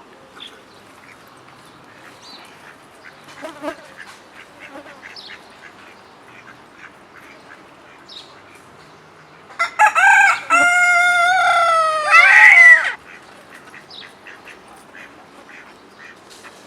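A rooster crowing once, loud, about three seconds long and starting a little past halfway, its last note falling away. Faint short bird calls sound around it.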